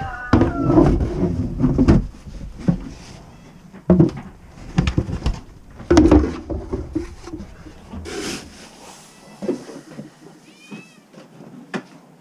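A cat meowing a few times, with knocks and clatter of feed-handling gear.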